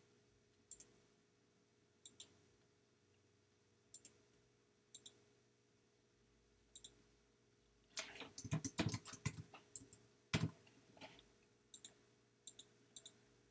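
Computer mouse clicks, sharp and scattered, often in quick pairs like double-clicks. About eight seconds in comes a quick flurry of louder clicks and taps.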